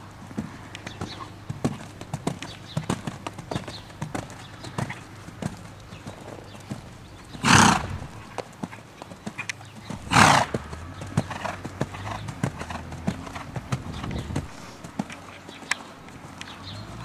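Hoofbeats of a ridden horse moving around a sand arena, a steady run of soft thuds. Two loud, short rushing noises break in, about seven and ten seconds in.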